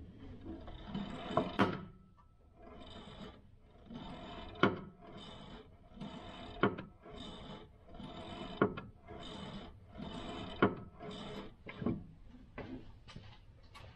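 Clutch pedal and linkage of a Toyota FJ40 Land Cruiser being pumped over and over, a creaking rub with a sharp click on each stroke, about once every two seconds. The pedal is being worked to test whether the newly bled clutch hydraulics move the clutch fork.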